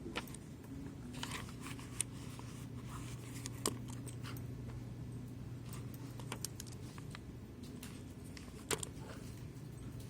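Scattered sharp clicks and light taps of computer mice and keyboards, four of them louder than the rest, over a steady low hum.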